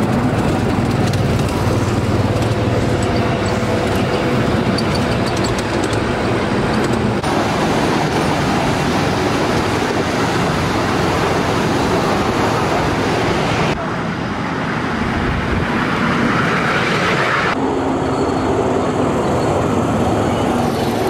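Steady rumbling outdoor noise that changes abruptly about seven, fourteen and seventeen seconds in.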